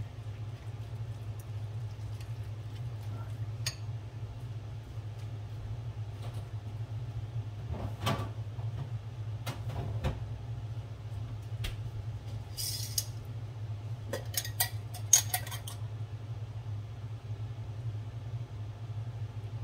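Scattered clinks, taps and knocks of a spoon, glass bowl and other kitchen items being handled, over a steady low hum. The sharpest knocks bunch together about fourteen to sixteen seconds in.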